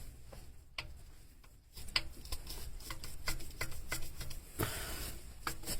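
Irregular clicks and taps of the fourth cylinder's piston being moved in its bore, sparse at first and more frequent from about two seconds in. The piston knocks in the bore because of excessive piston-to-wall clearance.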